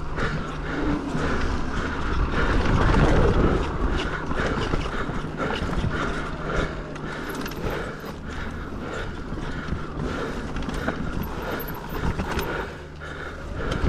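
Electric mountain bike riding fast down a dirt trail: rushing noise of wind and tyres on dirt, with the chain and frame rattling and knocking over bumps.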